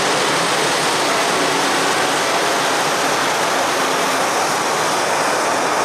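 Steady rushing noise of a steel-coil freight train's loaded wagons rolling along the rails, with a faint held tone in the middle.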